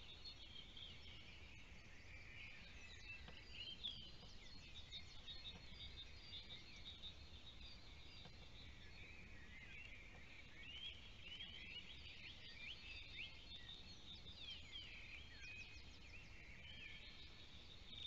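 Faint chorus of small songbirds, many quick high chirps and trills overlapping without pause.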